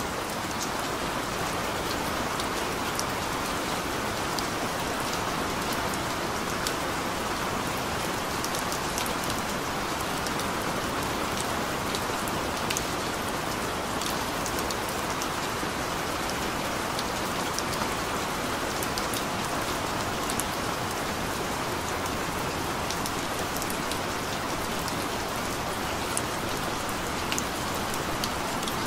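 Steady recorded rain, an even hiss with many small scattered drop ticks. It serves as the masking track that hides quiet spoken subliminal affirmations.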